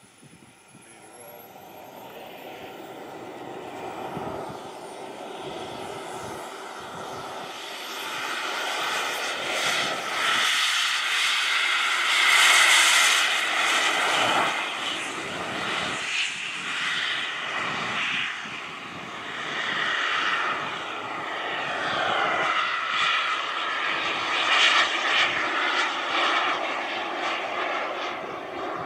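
Twin turbine engines of a radio-controlled Airworld Me 262 jet at takeoff power, through the takeoff run and climb-out. A thin high whine rises in pitch over the first few seconds while the sound builds. It is loudest as the jet passes about twelve seconds in, then stays loud and wavers as the plane climbs away.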